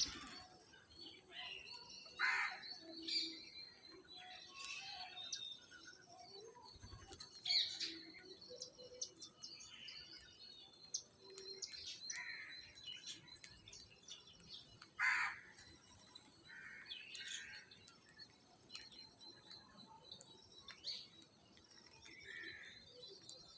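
Parrots calling with short squawks and chirps every second or two, the loudest about two, seven and fifteen seconds in, over a faint steady high hiss.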